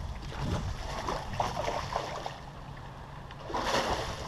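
Wind buffeting a head-mounted action camera's microphone over open water, with a louder rush of noise about three and a half seconds in.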